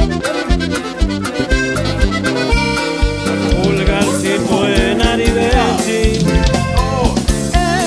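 Background music: accordion-led Mexican regional music with a steady drum beat.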